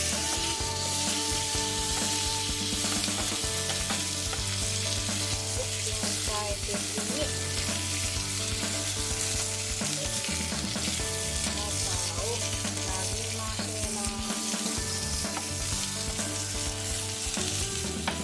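Corn on the cob sizzling steadily in a dry frying pan over lowered heat, browning with its seasoning added.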